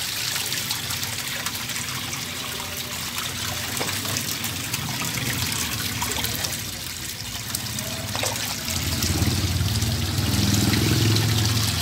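Water splashing and trickling in a shallow tank of live tilapia as a plastic scoop basket is swept through it to catch a fish. The sound grows louder in the last few seconds, as the fish is caught and lifted.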